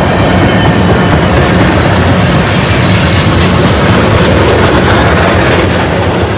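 Union Pacific manifest freight train passing close by, a loud, steady rumble of steel wheels rolling on the rails.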